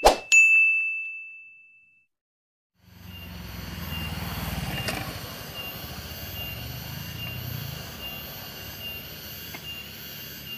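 A sound-effect click and bell-like ding that rings out for about two seconds. After a brief silence, a motorcycle engine runs with a low rumble as it rides up a road bend, loudest about four to five seconds in. Through it, a faint high tone pulses steadily.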